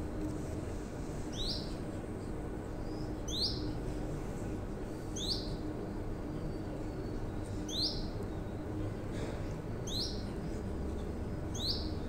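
Caged canary giving a single short, high chirp about every two seconds, six in all, over a steady low hum.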